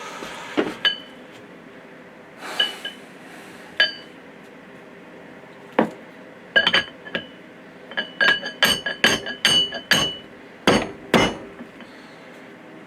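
Sharp metal-on-metal taps on the skid steer's steel hydraulic bucket-cylinder parts, each with a short ringing note. A few single taps come first, then a quick run of about a dozen in the second half.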